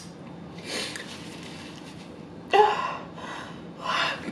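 A woman gasping and breathing out heavily in about three short breathy bursts, the loudest about two and a half seconds in.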